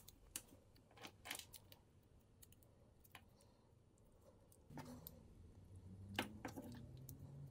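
Faint scattered clicks and taps of small metal hooks and hardware being handled and fitted onto a wooden swimbait by hand. A low steady hum comes in about five seconds in.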